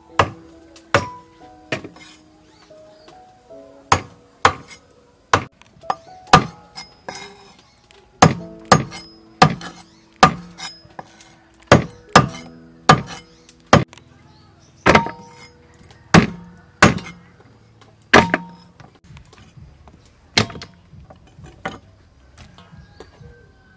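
Kitchen knife chopping the claw tips off raw chicken feet on a wooden cutting board: sharp, irregular chops about once a second, thinning out near the end. Soft instrumental background music with held notes plays underneath.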